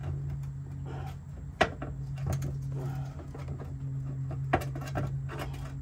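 Two sharp metal clunks about three seconds apart as a front strut and shock assembly is handled and lined up into its mount, over a steady low hum.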